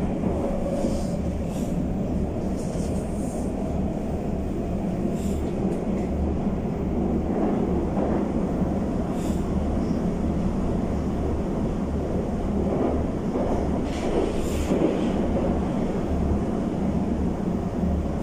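Cabin sound of a Moscow Metro 81-775/776/777 train running through the tunnel: a steady, loud rumble of wheels and running gear. A few brief high-pitched noises come through, about a third of the way in, halfway, and near the end.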